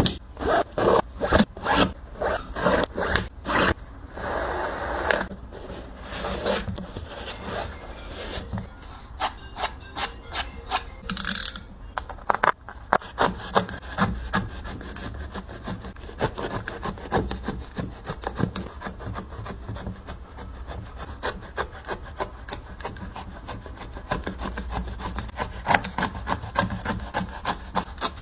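Nike Kyrie 4 basketball shoe being sawn apart, in repeated back-and-forth strokes of a blade through the sole, about two or three a second, then quicker and softer in the second half.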